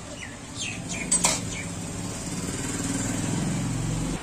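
Metal pots and utensils clink a few times about a second in, then a small engine runs close by, growing louder.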